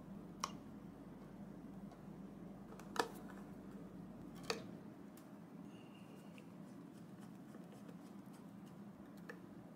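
Quiet room tone broken by three light clicks, about half a second in, at three seconds and at about four and a half seconds: a small steel ruler tapping against an electric guitar's pickups and pickguard as the pickup heights are measured.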